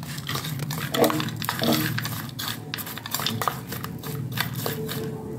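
A metal spoon scraping and clinking irregularly against a ceramic bowl as it stirs roasted peanuts into a dry spice mix, over a steady low hum.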